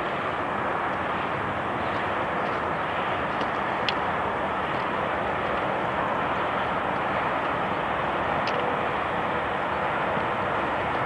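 Steady outdoor rushing noise with no pitch, at an even level, with two faint clicks, one about four seconds in and one about eight and a half seconds in.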